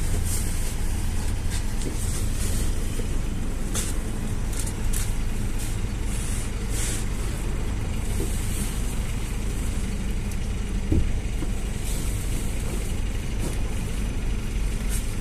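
GAZ-A68R52 City minibus on the move, heard on board: a steady low drone of engine and road, with short high hisses now and then and a single knock about eleven seconds in.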